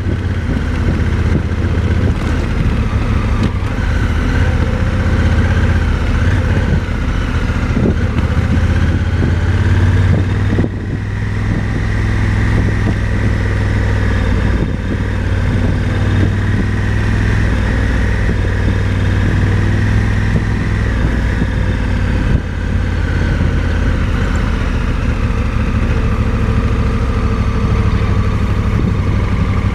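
Motorcycle engine running steadily at low revs while riding slowly on a dirt road, its pitch rising a little partway through and settling back.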